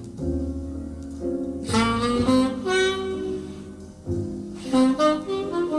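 Recorded music played back over the large loudspeakers of a hi-fi system and heard in the room: a melody line of held notes over low bass notes.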